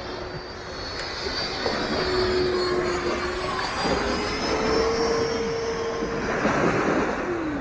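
Dynam Meteor V3 RC jet's 12-blade 70 mm electric ducted fan, driven by a 2600 kV brushless motor, whining as the jet flies past in the air. The whine gets louder after the first second, its pitch steps up a little through the middle, and it swells in a rushing pass near the end.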